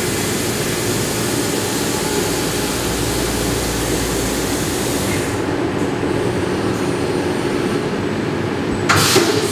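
CNC machining center face milling an aluminum block under flood coolant: a steady machine hum with a hiss of coolant spray and cutting. The hiss drops away about five seconds in, and a brief louder rush comes near the end.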